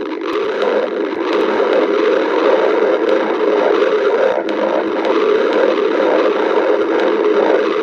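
A person's stomach growling continuously, recorded up close.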